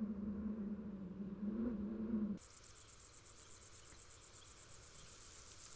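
A steady low hum for about the first two seconds, then a sudden change to insects chirping in a fast, even pulse of about ten high-pitched chirps a second.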